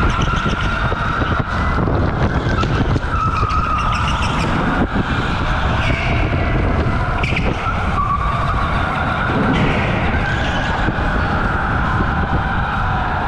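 OTL Storm electric kart driven at racing speed on an indoor concrete track. The motor's whine rises and falls with speed through the corners, over a constant rumble, with tyres scrubbing and squealing in the turns.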